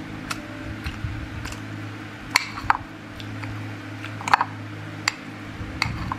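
A metal spoon clinking and scraping against a ceramic plate of fried rice: about a dozen sharp, short clicks, the loudest a little over two seconds in and again past four seconds. A steady low hum runs underneath.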